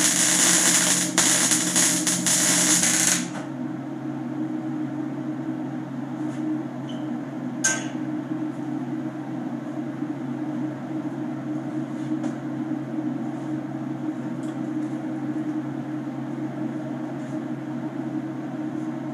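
Stick welding with a Lincoln AC arc welder: the arc crackles and sizzles loudly for about three seconds, then stops suddenly. After that a steady low hum carries on, with a single sharp metallic clink about eight seconds in.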